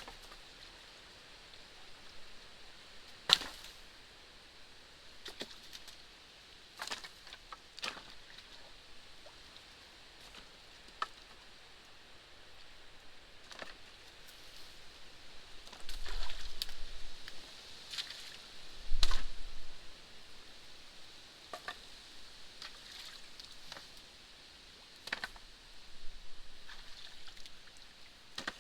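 Sticks and branches of a beaver dam cracking and knocking at irregular moments as the dam is pulled apart, with two longer, louder bursts of noise about two-thirds of the way through.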